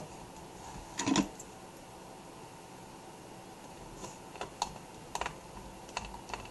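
Light clicks and taps of a small screwdriver and screws against a laptop's plastic screen bezel: a louder knock about a second in, then a scatter of short clicks from about four seconds on.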